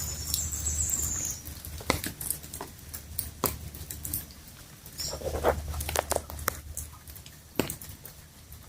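Rain dripping and pattering in scattered sharp taps over a low rumble, with a short high chirp at the start and another about five seconds in.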